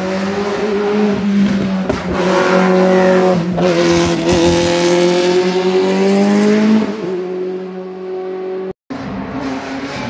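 Racing car engines running loud at high revs, one note held steady while another rises and falls in pitch for several seconds as the throttle is worked; the sound drops out for an instant near the end.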